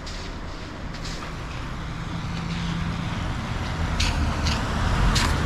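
A motor vehicle's engine running close by, a low steady rumble and hum growing louder. A few sharp clicks sound in the last second and a half.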